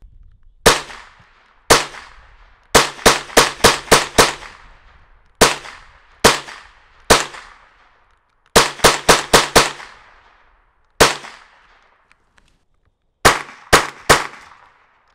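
Marlin Model 60 semi-automatic .22 LR rifle firing about twenty shots. There are single shots a second or more apart and quick strings of four to six shots, several a second. Each is a sharp crack with a short echo trailing off.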